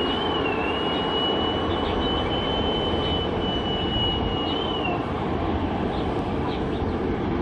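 Airbus A350's jet engines at idle as the airliner taxis: a steady rumble and hiss with a thin high whine that wavers slightly and stops about five seconds in.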